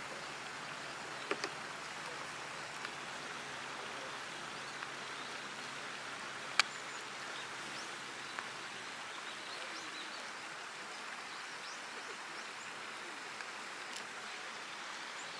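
Steady splashing of a fountain jet falling onto a pond's surface. A few faint clicks sound over it, and one sharp click comes about six and a half seconds in.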